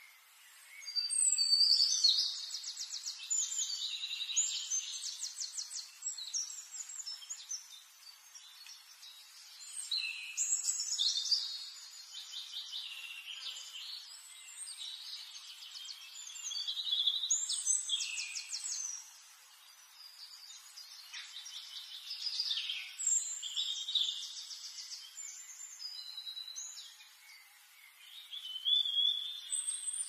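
Small aviary finches singing. About five bouts of high, buzzy, rapidly pulsed song phrases come one after another, each a few seconds long with short pauses between.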